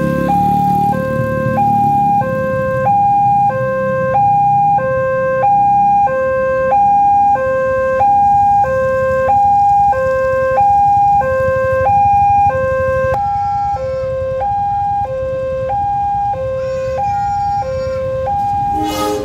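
Railway level-crossing warning signal: an electronic two-note alarm alternating steadily between a lower and a higher tone, about one pair every second and a half, sounding while the barrier is down for an approaching train.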